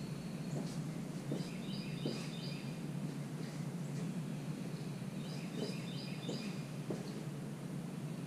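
A bird chirping a short high phrase twice, a few seconds apart, over a steady low hum, with a few faint light knocks.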